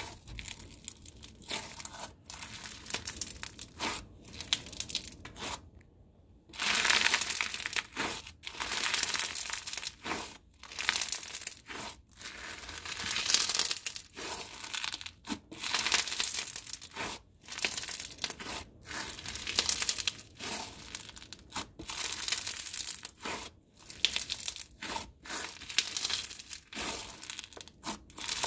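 Crunchy slime packed with microfloam and bingsu beads being squeezed and kneaded by hand, crackling and crunching with each squeeze. The squeezes come about every second or two, quieter at first and louder from about six seconds in.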